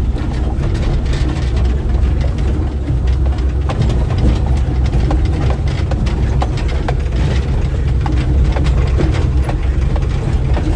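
Off-road vehicle's engine running as it drives along a rough dirt track, heard from inside the open cab, with frequent knocks and rattles from the body and frame over the bumps.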